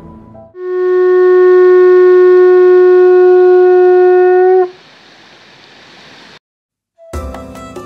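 Conch shell trumpet blown in one long, loud, steady note with a clear fundamental and a ladder of overtones; the pitch lifts slightly just before it cuts off. A quieter hiss follows for a moment, and music begins near the end.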